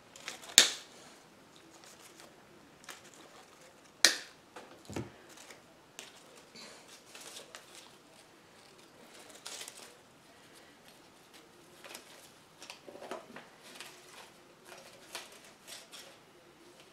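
Artificial flower stems and plastic leaves rustling as they are handled and pushed into a wire-mesh tiered tray, with two sharp clicks, about half a second in and about four seconds in.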